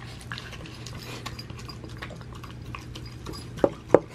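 A small dog eating soft homemade food from a plastic bowl, licking it up with quick wet smacking and small clicks. Two louder knocks come near the end.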